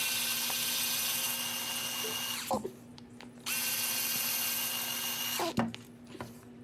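Cordless drill-driver spinning out chassis screws in two runs of about two seconds each, its motor whining steadily and winding down in pitch at the end of each run.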